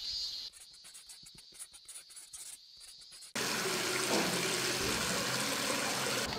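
Water running steadily from a tap into a sink, starting suddenly about halfway through after a quieter stretch.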